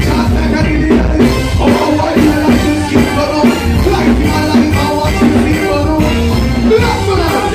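Live band rehearsing: drums, bass and keyboards playing a steady beat, with a voice singing over it.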